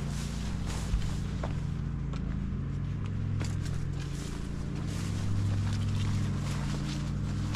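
Footsteps on a path, short irregular steps about every half second to a second, over a steady low hum.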